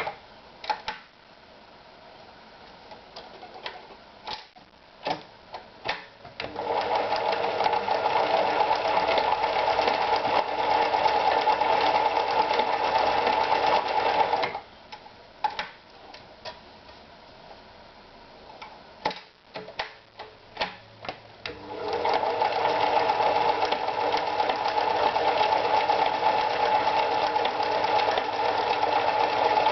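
Privileg Super Automatik TopStar 796 sewing machine stitching in two steady runs of about eight seconds each. Between the runs, and after a stop right at the start, come scattered clicks and knocks.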